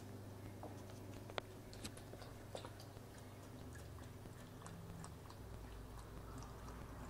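Pomeranian puppy lapping water from a stainless steel bowl: faint, quick, irregular little clicks and wet ticks, several a second, over a low steady hum.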